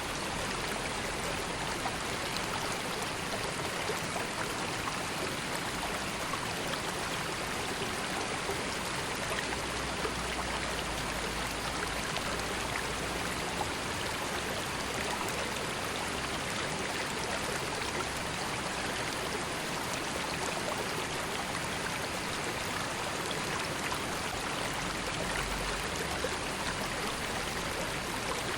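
A river flowing in a steady, even rush of water, with fine splashing and trickling.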